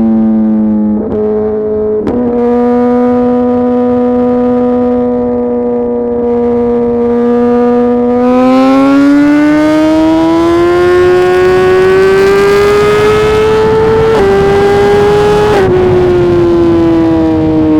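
Suzuki GSX-R 1000 R inline-four through a full titanium SC-Project exhaust, held at steady revs for several seconds and then accelerating hard, the pitch climbing with two quick upshifts near the end before the revs fall away.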